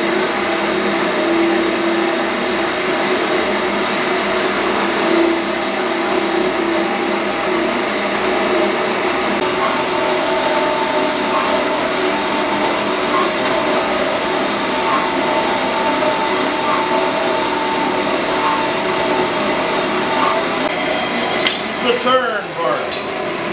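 Horizontal metal-cutting bandsaw running steadily, its blade cutting through the quarter-inch steel wall of a CO2 tank. Near the end come a few sharp clicks and knocks as the tank is handled in the saw's vise.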